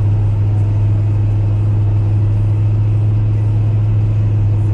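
A car's V8 engine and exhaust running at a steady speed: a constant low drone that does not change.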